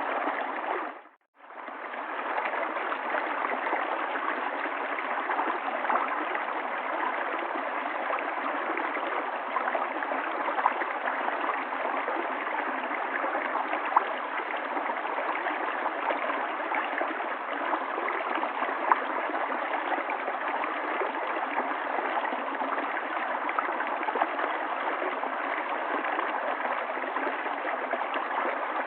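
River water flowing and babbling steadily, with small splashy accents. The sound cuts out briefly about a second in, then fades back in.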